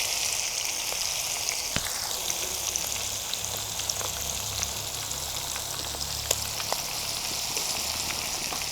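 Marinated chicken pieces frying in hot sunflower oil on a low-to-medium flame: a steady sizzle with scattered small pops and crackles.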